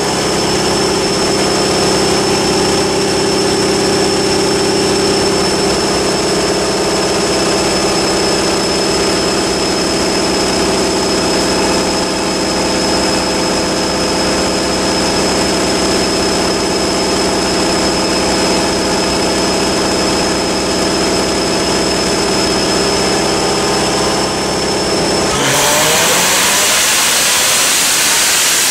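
Supercharged Corvette ZR1's V8 running at a steady speed on a chassis dyno, driving the rollers, with a steady high whine over it. Near the end the throttle opens and the engine revs up as a dyno pull begins.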